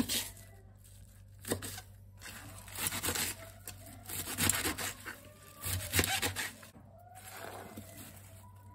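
Kitchen knife slicing through napa cabbage on a plastic cutting board: irregular cuts about every second and a half, the blade knocking the board. Near the end the chopped leaves rustle as they are slid off the board into a glass bowl.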